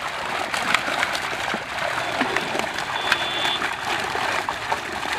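Water churning and splashing continuously, with many short sharp splashes, as a crowded catch of Indian major carp thrashes inside a seine net drawn tight around them.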